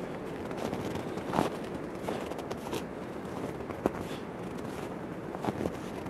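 Footsteps crunching in snow: a few irregular crunches over a steady background hiss.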